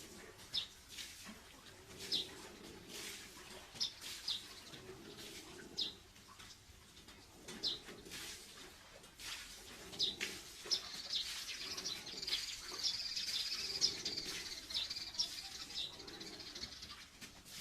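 Small birds chirping: single short high chirps every second or two, then a longer run of busy twittering about eleven seconds in.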